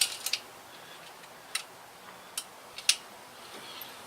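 A handful of short, sharp clicks and taps at uneven intervals over a quiet background, the loudest about three seconds in.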